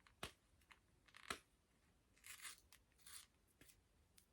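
Faint, scattered clicks and brief crinkles of a stubborn plastic candy container being pried at by hand. Two sharp clicks come in the first half and two short rustles later, with near silence between.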